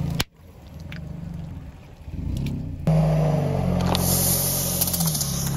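Car engine running as the car creeps forward, its tyre pressing down on a plastic drink bottle. There is a sharp snap just after the start, and a hiss with crackles in the second half as the bottle is squeezed.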